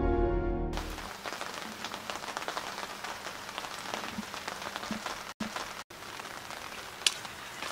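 Light rain pattering: an even, crackly hiss of many small drops, with the sound cutting out briefly twice in the middle and a sharp click about seven seconds in.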